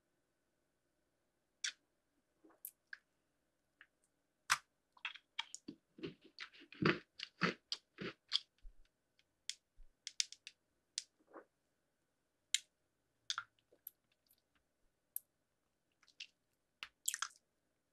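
Close-miked biting and chewing of candy: sharp crunches and clicks, coming thick and fast for a few seconds in the middle, then scattered single crunches.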